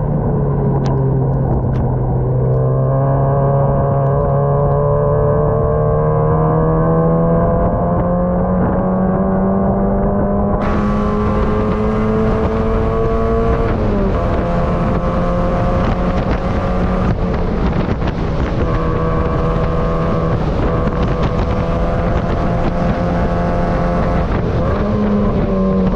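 Mazda MX-5 race car's four-cylinder engine heard from the cockpit, pulling up through the revs in a long acceleration. The pitch drops sharply at a gear change about fourteen seconds in, and the engine then runs on steadily. A steady hiss joins about ten seconds in.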